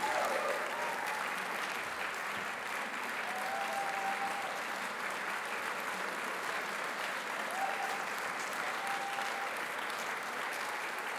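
Audience applauding steadily, a large room full of people clapping together. A few short faint held tones sound above the clapping.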